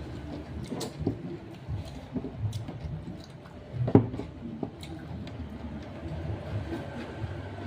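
Chewing and mouth sounds of people eating ayam geprek (smashed fried chicken) with rice, with scattered small clicks and one sharp knock about four seconds in.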